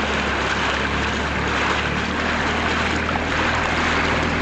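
Excursion boat's engine running steadily, a low hum, under a steady rushing hiss of water moving past the hull.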